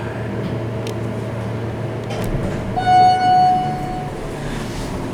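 Elevator chime: one steady electronic tone lasting just over a second, about three seconds in, over the steady hum of the elevator car.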